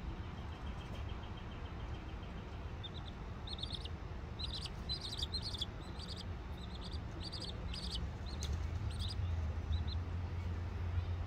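Young chicks peeping: short, high peeps in quick runs, starting about three seconds in and stopping near the end. Underneath is a steady low rumble that grows louder in the last few seconds.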